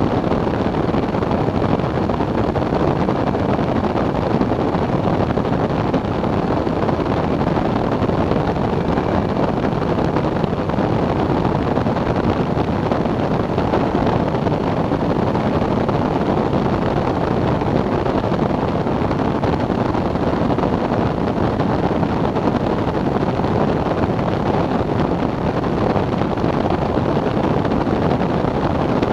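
Steady rush of wind on the microphone of a flexwing microlight trike in cruising flight, blended with the constant drone of its pusher engine and propeller. The noise stays even throughout, with no change in pitch or level.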